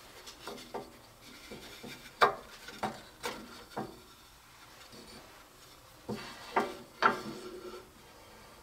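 Pieces of cut cherry wood being handled on a saw table: a series of sharp wooden knocks and short scrapes as the cut-out center block is pushed free of the thick box frame and set down. The knocks come in two clusters, about two to four seconds in and again around six to seven seconds in.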